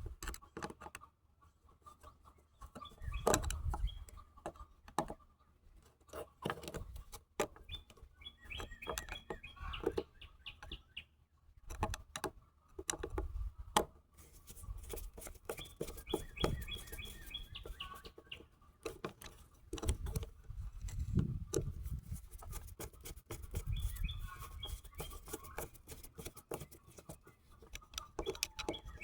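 Irregular clicks and taps of hand work with small tools and parts, with bursts of bird chirping several times.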